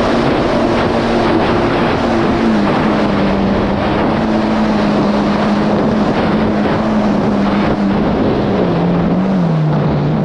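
Supercharged Yamaha GP1800R SVHO jet ski engine running under way over a rush of wind and water, its note stepping down a little about two and a half seconds in and again near the end as the throttle eases.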